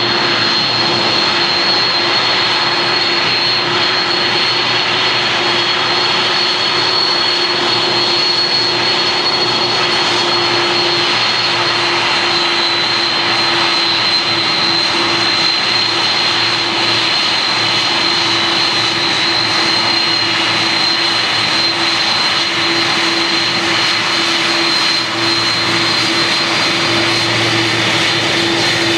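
Boeing 747 turbofan jet engines running at low taxi power close by. A steady jet noise carries an even high-pitched whine and a lower steady hum.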